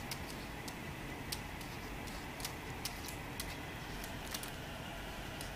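Light, irregular clicks and taps, about a dozen, from a shih tzu pawing and tugging at a hanging green frog toy against a sliding glass door, over a steady hiss.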